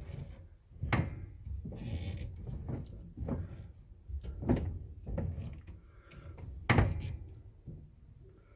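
A handful of sharp knocks and thumps, the loudest about a second in and near seven seconds, over a low rumble.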